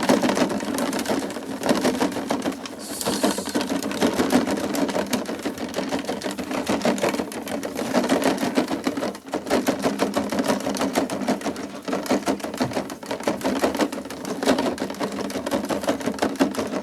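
An object being shaken hard, making a continuous rapid rattling and clattering with brief pauses about 9 and 13 seconds in.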